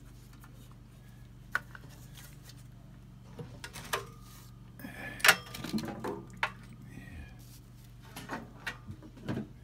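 Metal clinks and clanks as the boiler's bolted burner door is worked loose and swung open, the loudest clank about five seconds in, a few with a brief metallic ring, over a steady low hum.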